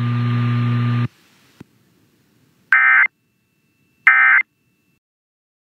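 Steady electrical hum on the radio feed, cutting off abruptly about a second in. Then two short buzzy data bursts about a second and a half apart: the Emergency Alert System end-of-message tones that close a broadcast severe thunderstorm warning.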